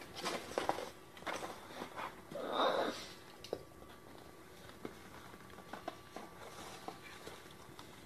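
Baby scarlet macaws scuffling and scratching about in wood shavings against a plastic sheet. Scattered small clicks and rustles, with a short harsh burst of noise about two and a half seconds in.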